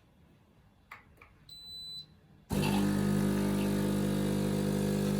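The Sage Barista Touch (Breville Barista Touch) espresso machine gives a short electronic beep as it is switched on. About two and a half seconds in, it suddenly starts running with a loud, steady hum.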